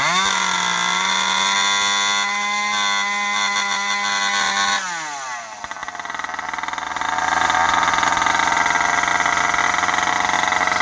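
Turbocharged Husqvarna 394XP two-stroke chainsaw with an expansion-chamber exhaust, revved without cutting. It climbs quickly to a high steady scream and holds it for about five seconds, then drops off as the throttle is let go. A second or two later it builds back up to a loud high-speed run without a clean steady note.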